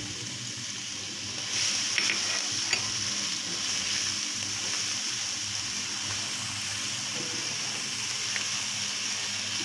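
Chopped garlic sizzling in hot oil in a wok while being stirred with a spatula, with a few light spatula scrapes. The sizzle gets a little louder about a second and a half in.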